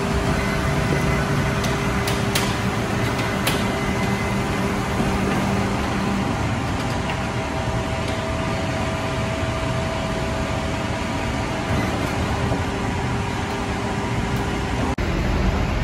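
Steady machinery hum with several held tones and an occasional faint click, with a brief break about a second before the end.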